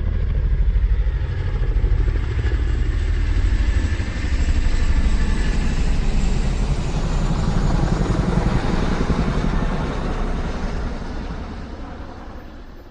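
A motor vehicle's engine running with a rapid low pulsing, fading away over the last few seconds.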